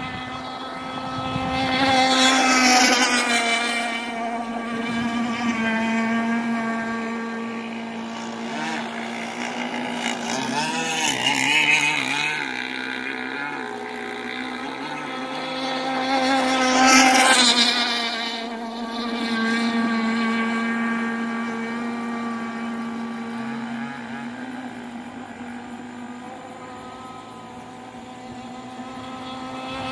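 Radio-controlled racing boats' small engines running flat out on the water: a steady high-pitched buzzing whine that swells as the boats pass, loudest about three seconds in, around eleven seconds and around seventeen seconds, and building again at the end.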